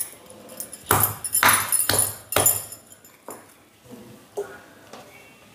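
Stone pestle pounding amla (Indian gooseberries) in a stone mortar to crack them open. A run of loud, sharp strikes comes between about one and two and a half seconds in, then a couple of lighter knocks.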